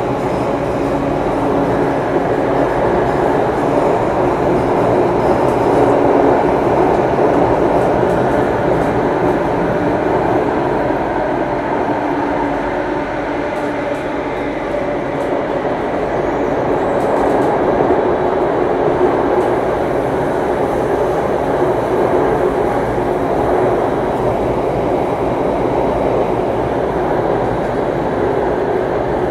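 Singapore MRT Circle Line train running through a tunnel, heard from inside the carriage: a steady running noise of wheels on rail, swelling and easing slightly a few times.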